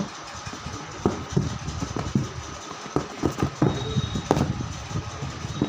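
Handling noise: irregular knocks and rustles as cardboard product boxes are picked up and moved, over a steady background hum.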